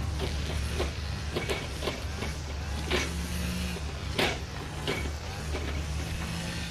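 Diesel shunting locomotive running with a steady low engine hum, broken by sharp clicks and knocks every second or so.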